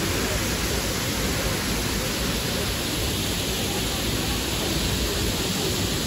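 Waterfall pouring onto rocks and into a pool: a steady, even rush of falling water.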